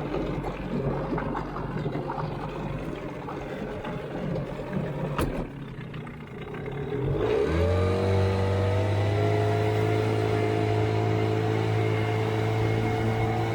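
Boat outboard motor running low, then picking up revs about halfway through and settling into a steady, louder run.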